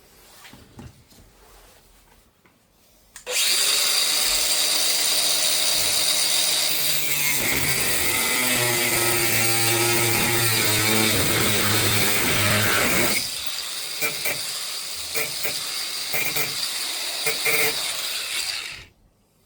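A power tool cutting off the excess length of metal from a newly fitted garage door lock: it starts about three seconds in, runs steadily at full cut for about ten seconds, then carries on a little quieter and more unevenly before stopping near the end.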